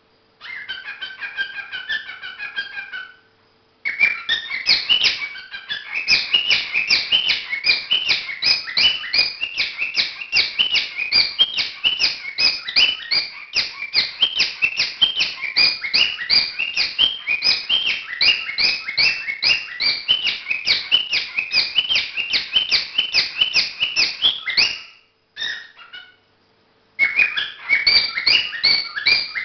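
Cockatiel singing its courtship song: a short warbling whistle, then a long run of rapid, repeated chirping notes, about four or five a second, which breaks off briefly near the end and starts again.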